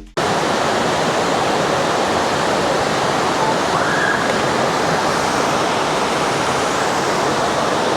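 Little River's white water rushing steadily over the rocky cascade at the Sinks.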